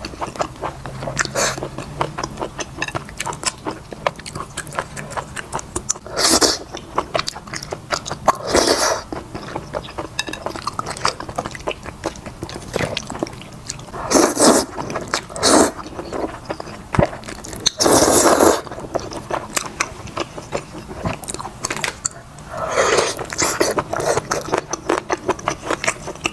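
Close-miked eating: wet chewing and lip smacks of chicken and wide belt noodles, with several longer drawn-out slurps of noodles spread through, the longest a little past the middle.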